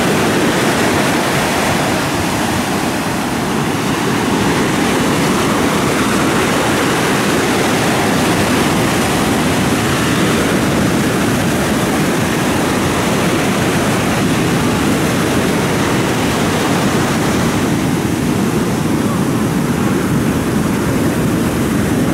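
Heavy surf breaking on a sandy beach, mixed with strong wind buffeting the microphone: a loud, unbroken rushing noise.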